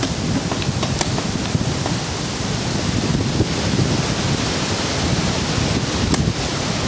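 Wind buffeting the camera microphone: a steady rumbling hiss, with a few faint sharp pops about a second in and again near the end.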